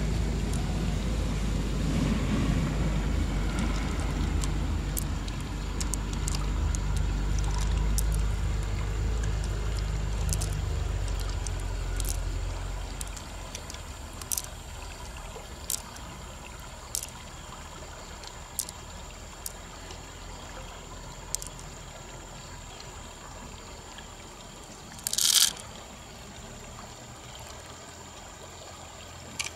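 Running river water under a louder low rumble that fades out after about twelve seconds. Then comes a string of small sharp clicks as freshwater pearls are set down one by one in the open mussel shell, and a brief louder rustle near the end.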